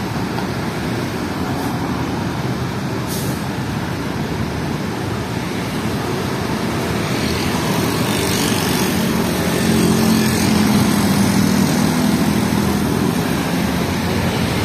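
Road traffic beside a queue of tour buses: engines running, with motorcycles and a car passing close. There is a short hiss about three seconds in, and the engine hum grows louder from about eight seconds in.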